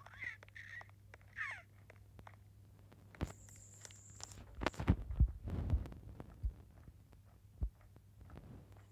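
Three short, high animal calls in the first second and a half, the last falling in pitch, followed in the middle by a cluster of knocks and bumps and a single knock later.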